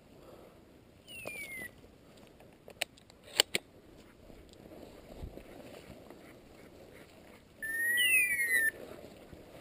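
High whistles: a short one falling in pitch about a second in, and a louder one about a second long near the end, gliding up and down. A few sharp knocks come in between.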